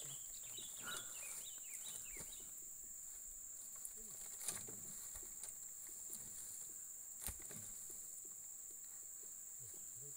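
Steady high-pitched drone of insects. A couple of short, sharp knocks come about four and a half and seven seconds in.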